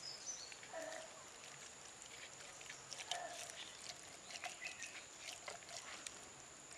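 Faint wet squishing and soft clicks of a hand rubbing chilli spice paste over the skin of a whole fish. Short animal calls come in a few times behind it, over a steady high whine.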